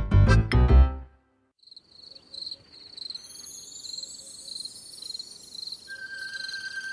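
A bouncy children's tune ends on its last few notes in the first second. After a short pause, a steady high pulsing chirp of crickets starts, joined by rising shimmering tones and then a held high note near the end, the intro to a night-time lullaby.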